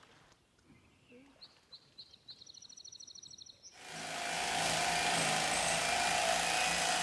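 A high, rapid bird trill, then about four seconds in a corded electric fillet knife starts and runs with a steady buzzing hum as it cuts through a fish.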